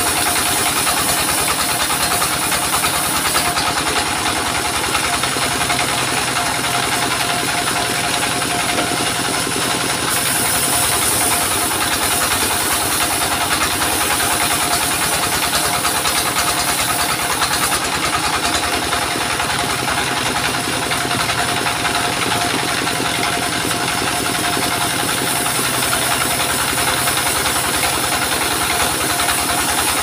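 Stationary diesel engine running steadily at a fast even beat, driving a sawmill's circular saw as a waru log is cut into planks. A steady high tone and a hiss from the cutting ride over the engine and change in strength a few times.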